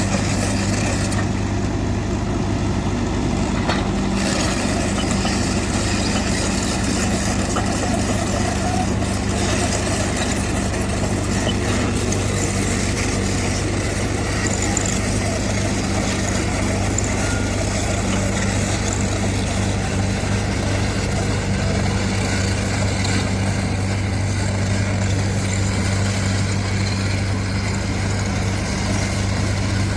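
Heavy diesel construction machinery running steadily with a constant low hum.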